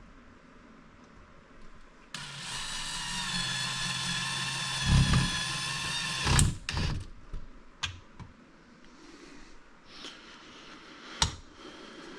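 Cordless drill running steadily for about four seconds, driving a screw into the wall. Two heavy knocks come near the end of the run, followed by a few sharp clicks.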